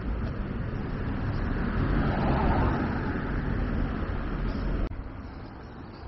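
A road vehicle passing close by: tyre and engine noise over a low rumble swells to a peak about halfway, then eases. The sound drops off suddenly about five seconds in.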